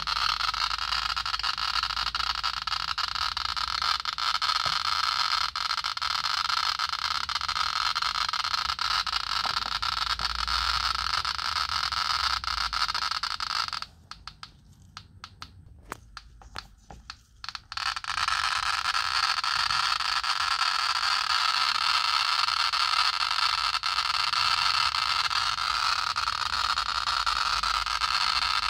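FH 40 T Geiger counter clicking so fast over pitchblende uranium ore (over 125,000 counts per minute) that the clicks merge into a steady hiss. For about four seconds around the middle the rate falls away to scattered single clicks, then the dense hiss returns.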